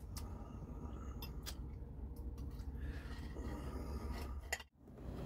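Knife and fork scraping and clicking faintly on a plate while cutting food, over a low steady hum; the sound stops abruptly near the end.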